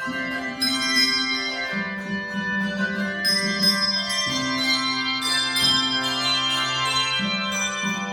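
Handbell ensemble playing music: overlapping ringing notes sounding together in chords over held low notes that change every one to three seconds.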